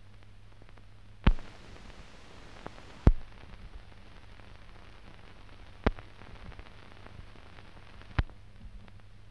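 Hiss and low hum of an old newsreel film soundtrack, with four sharp pops spread through it. The hiss gets louder and brighter between the first and second pops.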